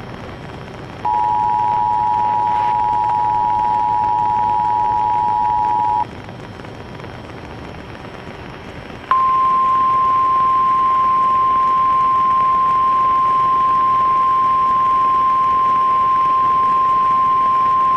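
Emergency Alert System attention signal: a steady two-tone chord for about five seconds, then a few seconds of radio hiss, then the single steady NOAA Weather Radio warning alarm tone for about nine seconds, cutting off suddenly.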